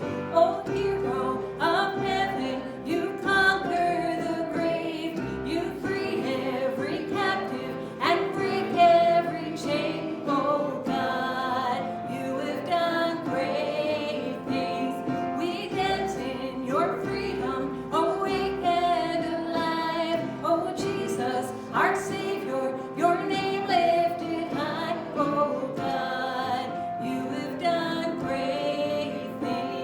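Worship song with a woman singing over instrumental accompaniment.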